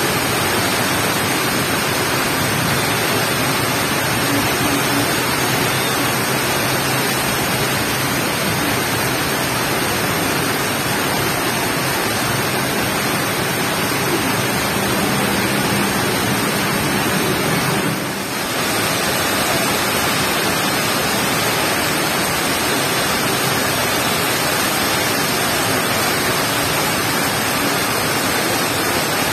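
Heavy rain pouring down: a loud, steady hiss with only a brief dip about eighteen seconds in.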